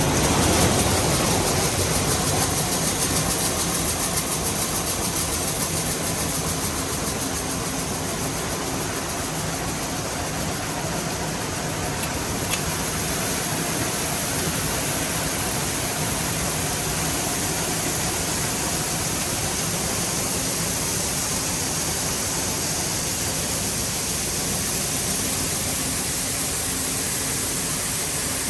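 Farm machinery engine running steadily, with a constant even hiss over a low hum.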